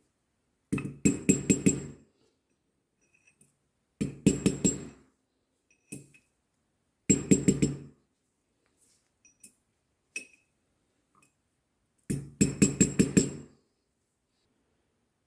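Quick metal-on-metal tapping in four short bursts of about a second each, several sharp strikes per burst, a few seconds apart.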